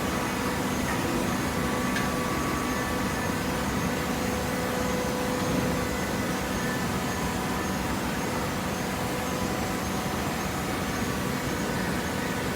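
Industrial machinery running steadily: a cardboard baler's conveyor line giving a continuous mechanical hum with a few faint steady tones, no distinct strokes or impacts.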